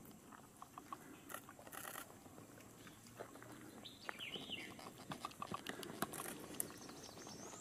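Quiet pond-edge ambience with scattered small clicks and ticks, and a short chirping call about four seconds in.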